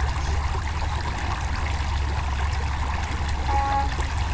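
Creek water trickling and running steadily over a low steady rumble. A short electronic beep sounds once, about three and a half seconds in.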